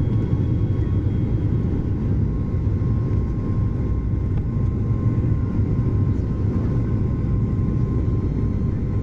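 Boeing 737-800 in its takeoff climb heard from inside the cabin: the CFM56 engines and airflow make a steady low rumble, with a faint constant whine above it.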